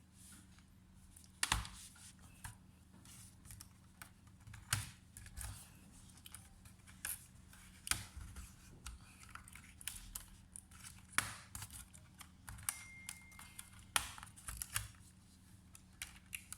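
Irregular clicks, taps and small knocks of tools and plastic laptop parts being handled, some louder than others, over a steady low hum.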